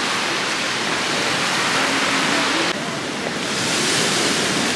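Sea surf washing onto a beach, a steady hiss, with faint distant voices beneath it.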